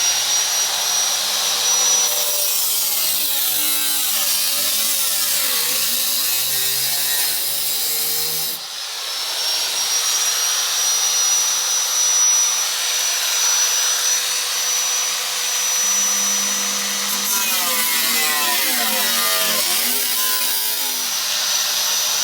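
A power tool's cutting wheel grinding through the rusted sheet-steel floor pan of a 1957 Nash Metropolitan: a loud continuous grinding hiss over a steady high whine, easing briefly about eight seconds in.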